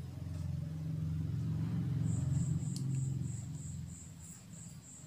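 A low rumble that swells to its loudest about halfway through, then fades. About two seconds in, a rapid, even series of short high-pitched chirps starts, about four a second.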